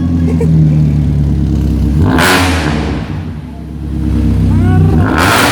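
Hyundai HB20 1.6 four-cylinder engine running loud through a new 4x1 tuned header with no catalytic converter, with two sharp rasping bursts of exhaust noise about two and five seconds in.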